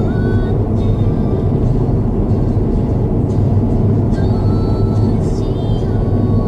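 Steady road noise inside a moving car's cabin: a constant low rumble of tyres and engine at expressway speed. Short thin tones come and go over it.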